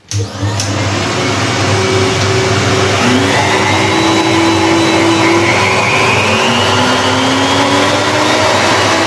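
Table-mounted router switched on and running steadily at its lowest speed setting, turned right down as a precaution for a newly fitted round-over cutter. It starts abruptly, and its whine carries several tones that slowly rise in pitch from about three seconds in.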